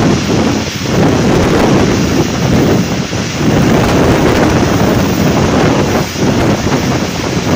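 Wind rushing and buffeting over a microphone held out of a moving passenger train's window, with the train's running rumble underneath; loud and steady, with a few brief dips.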